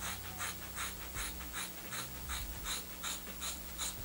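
Scissors snipping repeatedly through a thick ponytail of lace-front wig hair gathered tight in rubber bands, about three snips a second.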